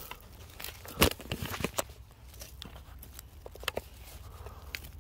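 Irregular crunching and clicking, as of dirt and small stones being worked, with one sharp clack about a second in, over a steady low hum.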